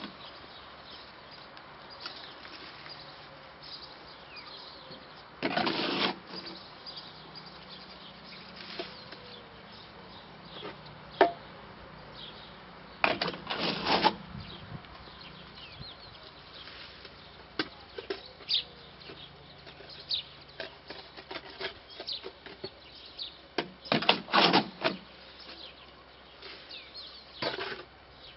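Shovel scraping and scooping concrete mix in a metal wheelbarrow: three loud scrapes roughly eight to eleven seconds apart, with small knocks in between. Faint bird chirps run underneath.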